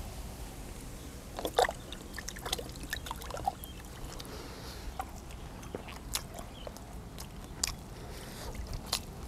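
A person eating blanched blood cockles close to the microphone: wet chewing smacks and a dozen or so irregular sharp clicks, spread out with short gaps between them.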